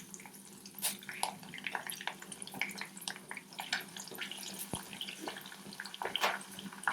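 Green chillies frying in hot sunflower oil with cumin seeds in a pan, sizzling and spluttering with many irregular small pops and crackles.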